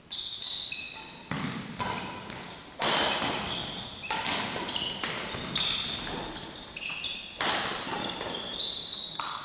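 Badminton rally in a reverberant sports hall: a string of sharp racket strikes on the shuttlecock, each ringing in the hall, with short high squeaks of court shoes on the floor between them.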